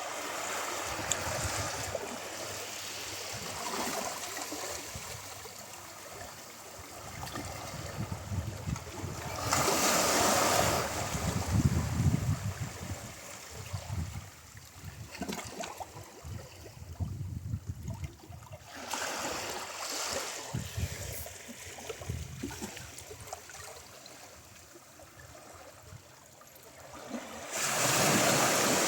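Ocean waves breaking on a shore and washing up the beach, with three louder surges of surf roughly nine seconds apart and a softer hiss of water between them.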